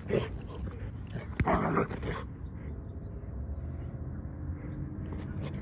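Dogs at rough play, with dog vocalizations: a brief one right at the start and a louder, half-second one about a second and a half in, then a quieter stretch.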